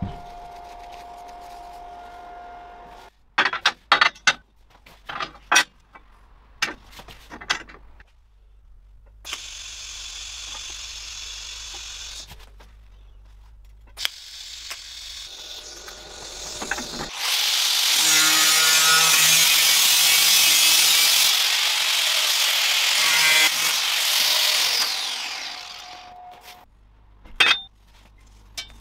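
Stainless-steel fabrication sounds in a workshop: sharp clicks and knocks of metal parts being handled, a TIG welding arc, and a power tool running loudly on metal for about eight seconds in the second half.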